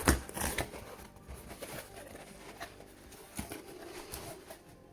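Hands rummaging through a parcel packed with packing peanuts: light rustling and scattered small clicks, busiest right at the start and sparser after.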